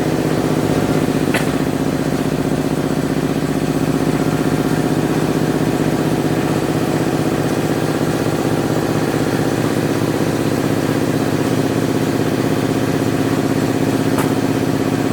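Motor-driven corn grinding mill running steadily at an even speed, with a couple of brief sharp ticks about a second in and near the end.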